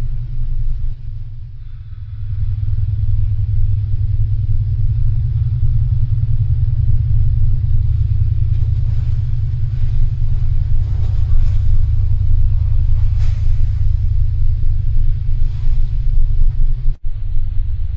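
Deep, steady rumbling drone of space ambience. It swells louder about two seconds in and cuts out for a split second near the end.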